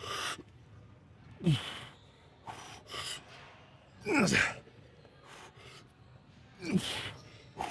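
A man gasping and exhaling hard through the reps of a heavy triceps set. Three short grunts drop sharply in pitch, about two and a half seconds apart, with hissing breaths between them.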